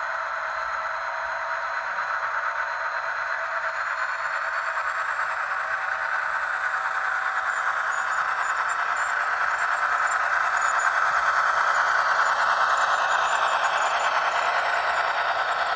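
Model Metra F40PH diesel locomotive's ESU LokSound V5 sound decoder playing a running diesel engine through its small onboard speaker, thin with no deep bass. It grows steadily louder as the locomotive approaches and stops suddenly at the end.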